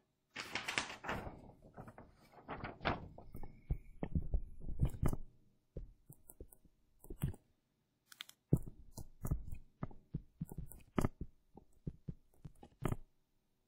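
Irregular light taps and knocks of a pen on a hard writing surface while figures are written by hand, densest in the first five seconds and sparser after, with a short rustle of handling about half a second in.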